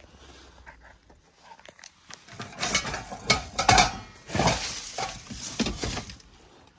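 Clinks and knocks of loose hard objects being handled and moved about, a dense run of them from about two seconds in that fades before the end.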